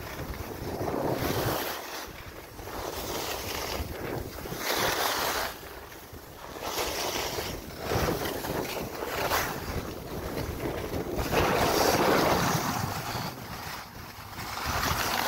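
Wind buffeting the microphone together with snow hissing and scraping under a sliding ski or snowboard, swelling and fading in repeated surges a second or two apart.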